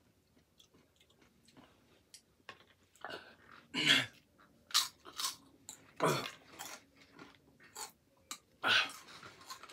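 A person chewing the One Chip Challenge Carolina Reaper tortilla chip, with soft, irregular crunching and mouth noises. A few louder, sharp mouth sounds come in between, about 4 and 6 seconds in.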